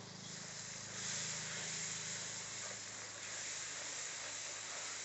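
Curry spice paste sizzling in hot oil in a steel wok, stirred with a wooden spatula; the sizzle grows louder about a second in. A steady low hum runs underneath.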